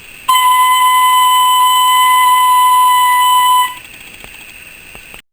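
Yamaha training fife playing one steady, high note, held for about three and a half seconds and then stopped cleanly.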